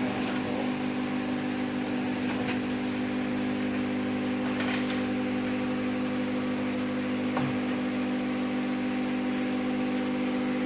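Automatic sachet filling and packing machine powered up, giving a steady low electric hum with a few faint clicks.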